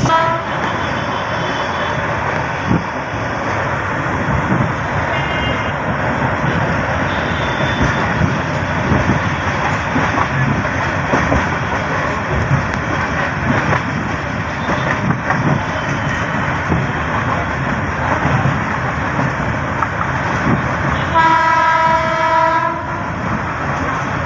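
Passenger train running at speed, heard from an open door: a steady rumble and rattle of wheels on the rails. Near the end a horn sounds once for about a second and a half.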